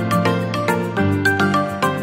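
Background music with a steady beat and short, bright melodic notes.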